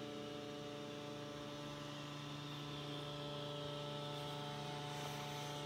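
Steady electrical hum: a low drone with several fainter higher tones held above it, unchanging throughout.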